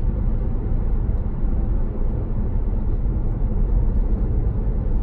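Tyre and road noise heard from inside the cabin of an electric car (a Tesla) travelling at road speed: a steady low rumble.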